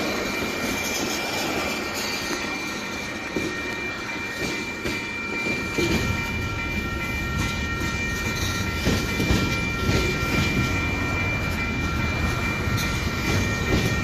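Freight train's tank cars rolling past at speed, wheels clacking irregularly over the rail joints under a continuous rumble that grows fuller about six seconds in. A steady high-pitched whine rides over it throughout.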